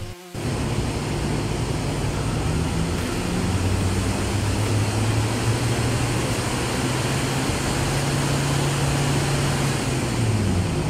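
Hyundai Starex CRDi diesel engine running at a steady speed on a hub dynamometer, a low steady hum under a loud rushing noise. The hum steps up slightly about three seconds in, holds, and dips briefly near the end.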